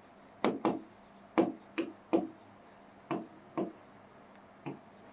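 Yellow chalk writing on a blackboard: a string of about eight short taps and scratchy strokes at an uneven pace.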